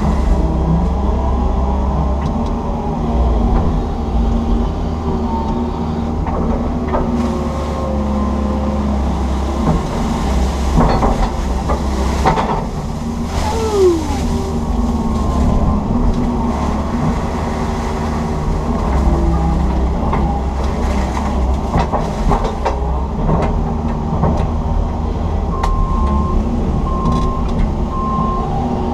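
Komatsu PC160 hydraulic excavator's diesel engine running steadily, heard from inside the cab as the bucket works, with scattered knocks and clanks. A short falling whine comes about halfway through, and three short tones near the end.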